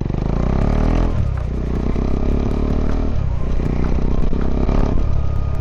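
Motorcycle engine pulling away and running under way, its pitch rising in the first second and dipping briefly twice, about a second and three seconds in. Scattered light clicks and rushing noise, typical of a clip-on mic while riding, sit over it.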